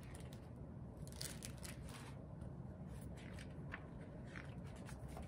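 Hardcover picture book being opened and its pages turned: scattered soft paper rustles and light clicks over quiet room tone.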